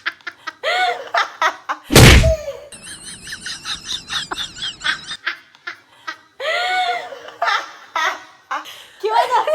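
Children laughing and giggling in high, rapid bursts, with one loud thump about two seconds in.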